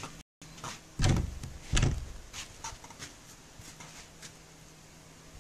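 Two loud dull thumps about a second apart, then a few lighter clicks and taps: a handheld phone being handled and bumped against its microphone.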